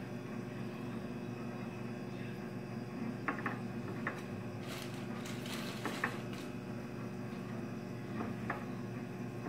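A hand kneading mashed cooked rice and rice flour into a dough in a glass bowl: soft squishing and rubbing, with a few light clicks against the glass, over a steady low hum.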